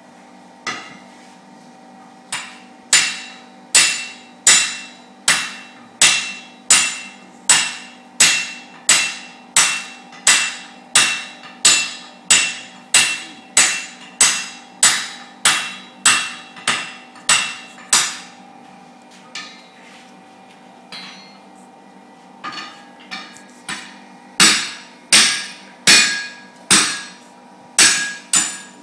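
Blacksmiths forging red-hot iron on an anvil, a hand hammer and a striker's sledge working together: a steady run of ringing blows at about one and a half a second. Past the middle the blows break off to a few scattered strikes, then resume with a run of lighter, quicker taps and more heavy blows.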